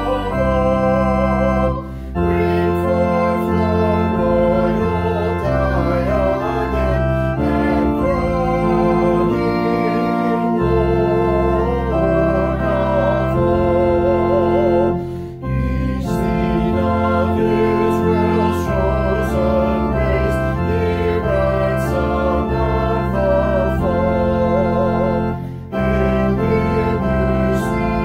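Organ playing a hymn, with a singing voice carrying the melody and three brief pauses between lines.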